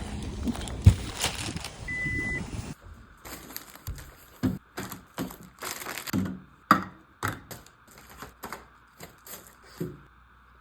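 Handling of groceries: plastic packaging crinkling and light knocks of items being put down, in short irregular bursts. Before that, a busy background with a single short electronic beep about two seconds in.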